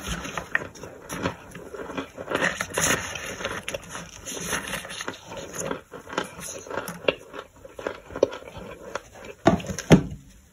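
Plastic spoon pressing and scraping through toasted starch chunks and powder in a plastic tray: a dense run of small crunches and crackles, with a louder crunch near the end as a gloved hand reaches in.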